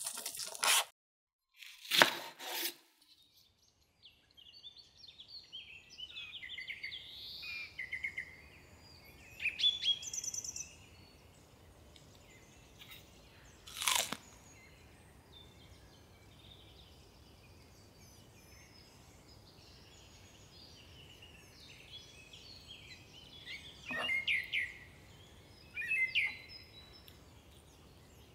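Small birds chirping in the background throughout. A few short, crisp crunches come from the fresh cabbage and perilla-leaf vegetable rolls being handled: a loud one about two seconds in, another around the middle, and two near the end.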